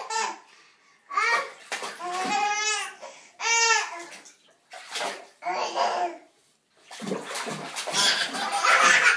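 Two young boys laughing in a bathtub in high-pitched bursts with short pauses between them, and water splashing from about seven seconds in.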